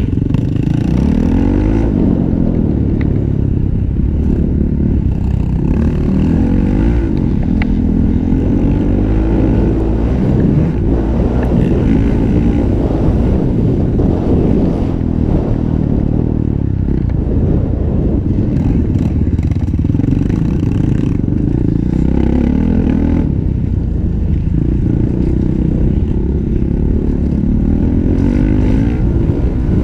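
Honda 450 motocross bike's single-cylinder four-stroke engine revving hard, its pitch climbing and dropping again and again through the gears and off the throttle, with rattle and wind noise from the bike-mounted camera.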